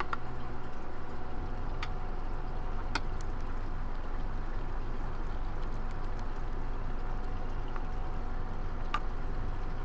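A few light clicks from a small screwdriver and plastic quadcopter parts being handled, over a steady low hum and hiss.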